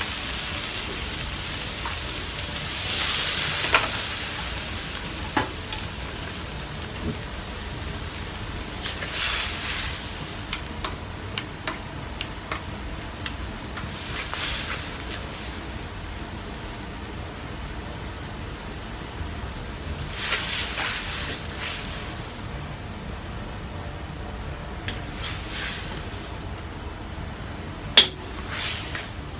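Vegetables stir-frying in a wok over a high gas flame: a steady rushing noise with sizzling that surges in bursts as the food is tossed, and the ladle knocking against the wok a few times, the loudest a sharp clank near the end.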